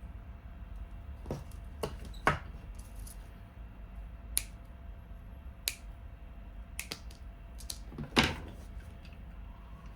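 Toy revolver clicking as it is handled: about eight sharp, irregular clicks, the loudest about two seconds and eight seconds in, over a steady low hum.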